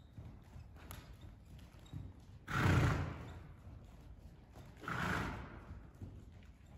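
Grey pony trotting on sand footing, its hoofbeats faint and muffled, blowing out hard through its nostrils twice, about two and a half seconds apart.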